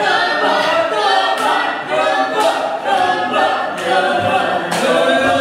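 A cappella singing by several voices in harmony, without instruments, moving from note to note in short held tones.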